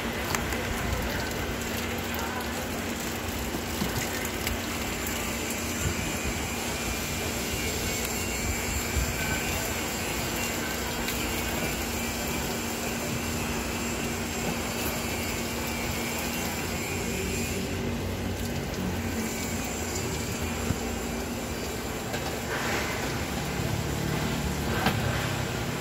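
A steady mechanical drone with a constant low hum, unchanging in level.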